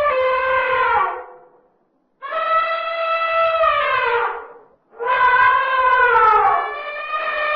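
Elephant trumpeting: three long calls, each held on one pitch and then sliding down at its end, with short pauses between them.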